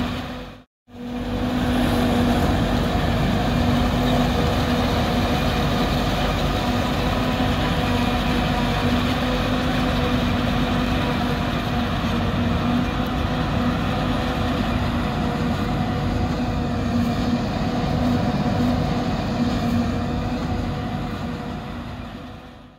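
New Holland 2100 self-propelled forage harvester running under load, chopping corn and blowing silage, a steady machine noise with a constant hum. The sound drops out for a moment under a second in and fades out at the end.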